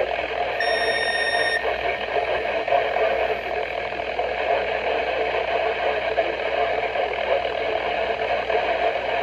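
Steady hiss of static from a weather radio receiver, with a single electronic beep lasting about a second, starting about half a second in.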